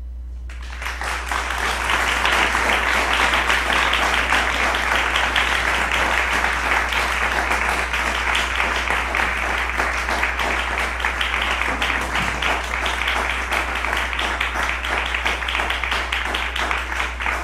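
Audience applauding, a dense crackle of many hands clapping that starts about a second in and holds steady.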